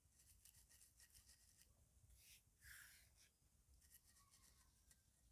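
Faint scratching of fingertips rubbing ground cardamom through a steel wire-mesh strainer, in short repeated strokes.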